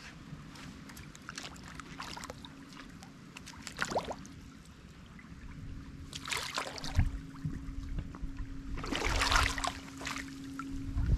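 Canoe paddle strokes splashing and dripping in shallow water, in separate strokes about 4 s, 6 s and 9 s in, the last the loudest. A faint steady hum runs underneath.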